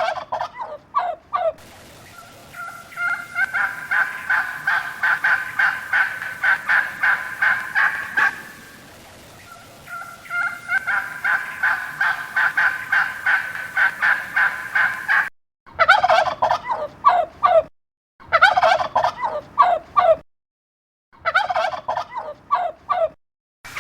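Turkey gobbling in long runs of rapid, pulsing calls. Two long bouts are followed by three shorter ones that start and stop abruptly.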